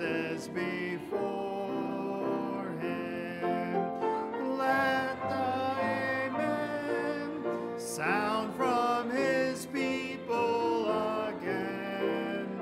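A hymn sung with instrumental accompaniment, the melody moving through long held notes.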